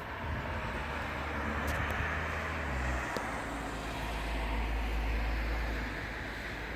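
Airbus A340-300's four CFM56 jet engines running as the airliner taxis, a steady rushing whine that grows louder through the middle and eases toward the end, over a deep low rumble.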